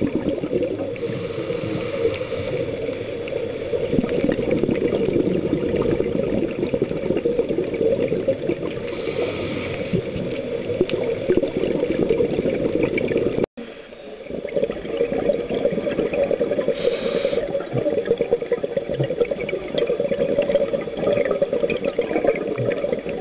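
Underwater sound picked up by a camera in a dive housing: a steady, muffled rush of water. Scuba regulator exhaust bubbles burst out about every eight seconds, and the sound cuts out for an instant about halfway through.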